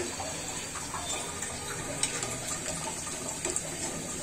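Lentil fritters (piyaju) deep-frying in hot oil in an iron wok: a steady sizzle, with a few light clicks of a metal spatula against the pan.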